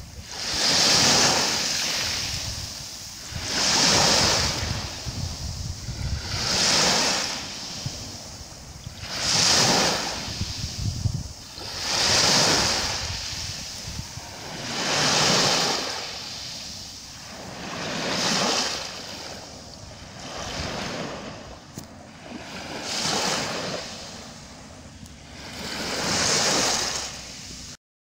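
Small waves breaking and washing up a shingle beach of pebbles and shells, a surge of surf about every three seconds. The sound cuts off just before the end.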